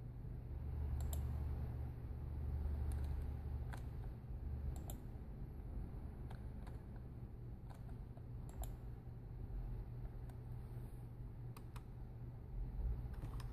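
Computer mouse clicking: scattered, irregular sharp clicks about every second or so while a web page is scrolled and clicked through, over a steady low office hum.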